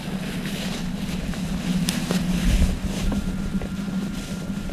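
Wind rumbling on the camera microphone over a steady low hum, with faint rustling of dry grass and a few light clicks about two seconds in.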